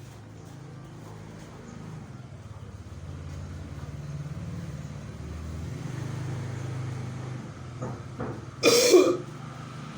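A low, steady engine-like rumble builds and then fades. Near the end a person coughs a few times, the last cough loud and harsh, the kind of phlegm-clearing cough that a gurah herbal nasal treatment brings on.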